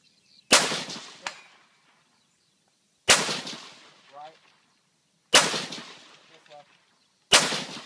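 Four rifle shots fired from prone, spaced about two to two and a half seconds apart, each a sharp crack with a short decaying tail. A fainter crack follows the first shot under a second later.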